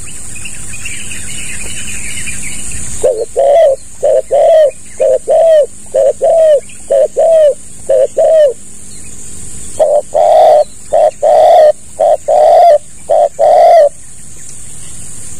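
Spotted dove (tekukur) cooing: a quick run of about a dozen short coos, a pause, then a slower run of about six longer, louder coos. A steady high hiss runs underneath.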